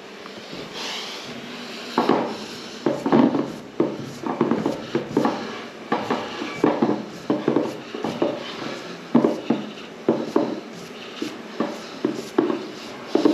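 A gloved hand rolling boilies back and forth across the ribbed plastic base of a boilie rolling table: a series of short rubbing strokes, about one a second, with the balls rattling in the grooves.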